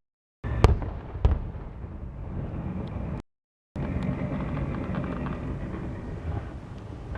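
Fireworks shells bursting: two sharp bangs in quick succession about a second in, then ongoing rumble and crackle from the display. The sound drops out completely twice for a split second.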